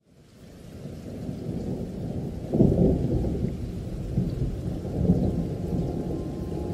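Rain with rolling thunder, fading in from silence over the first second; a deep rumble swells about two and a half seconds in and again near five seconds.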